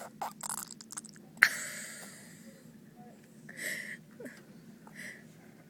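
A baby blowing wet raspberries with her lips, fart-like spluttering noises with spit, in several short bursts. The loudest is a sharp spray about a second and a half in that trails off over about a second.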